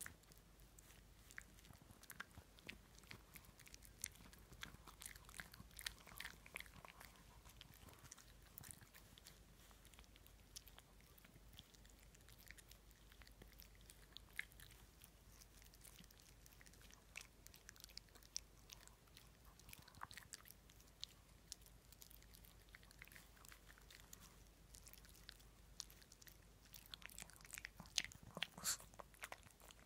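A Shih Tzu chewing and nibbling with its mouth, making faint, irregular wet clicks and snaps. A louder flurry of them comes near the end.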